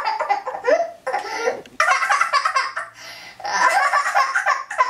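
A young girl laughing hard in quick, high-pitched bursts, dropping off briefly about halfway before breaking into laughter again.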